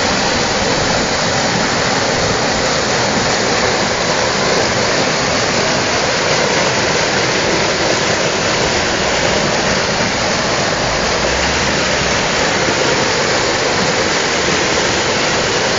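River water rushing, a steady, even rush with no breaks.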